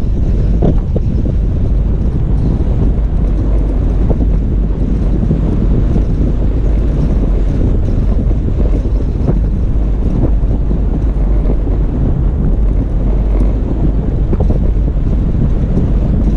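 Toyota FJ Cruiser driving on a snowy dirt road: a steady low rumble of engine, tyres and wind, with a few faint knocks.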